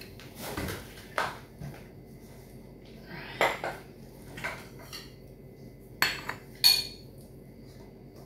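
Dishes and cutlery clinking and knocking as they are handled: about half a dozen separate clatters, the two sharpest about six seconds in, the last of them ringing briefly.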